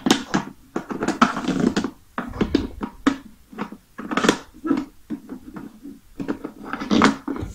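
Plastic drumsticks striking the pads of a Clementoni Sapientino electronic toy drum kit in a quick, irregular series of hits, the kit sounding its electronic drum sounds.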